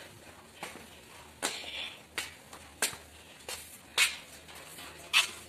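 Footsteps on a concrete walkway, about six short sharp steps spaced roughly two-thirds of a second apart.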